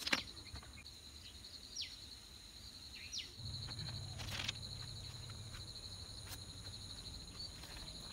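Insects trilling steadily in high, finely pulsing tones, with a few short bird chirps. A couple of sharp clicks are heard, and a faint low hum comes in about three seconds in.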